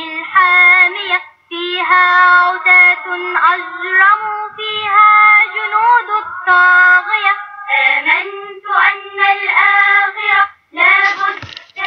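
A child singing a nasheed, an Islamic devotional song, in Arabic. The melody comes in sung phrases with brief pauses for breath between them.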